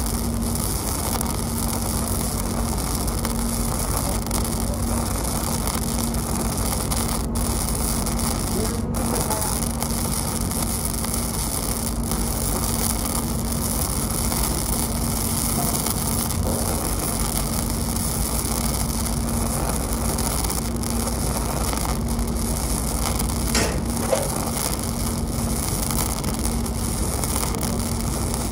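Gasless flux-cored wire welding arc running continuously with a steady crackling hiss, over a steady low hum.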